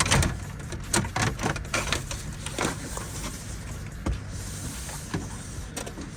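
Plastic dashboard trim being pried and unclipped, giving a run of sharp clicks and knocks in the first few seconds, then a quieter rustle of the panel shifting.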